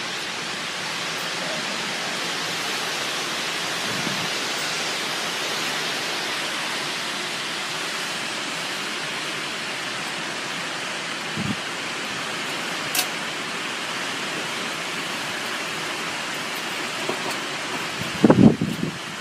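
Storm wind blowing hard and without letup: a dense, steady rushing hiss. A few low thumps break through, the loudest near the end.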